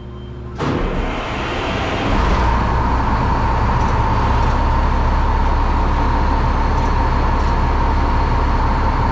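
Heavy truck running steadily with a constant whine over a low rumble. It gets louder suddenly about half a second in and again about two seconds in, then holds steady.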